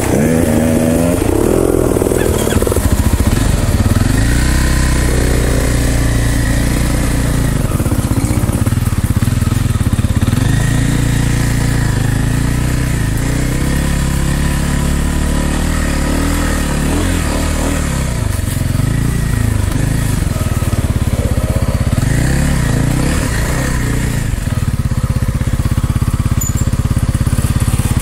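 Dirt bike engine running, its pitch rising and falling again and again as the throttle is worked.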